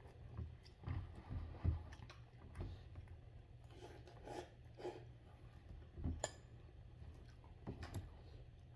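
A person slurping up a mouthful of instant noodles and chewing, in faint, scattered wet mouth sounds. One sharp click about six seconds in.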